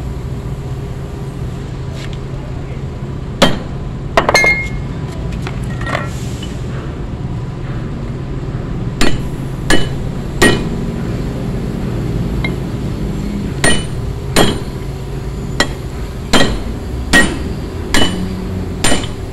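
Hammer striking a steel Kenter shackle to tap its parts into place in the chain link, with sharp metallic clinks. There are a few scattered blows at first, then a regular series of strikes about one every 0.8 s in the second half, over a steady low hum.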